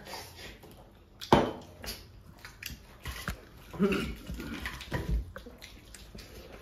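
Eating by hand: curried rice being squished between fingers, with chewing and mouth noises. There is a sharp knock about a second in and short voiced sounds around four seconds in.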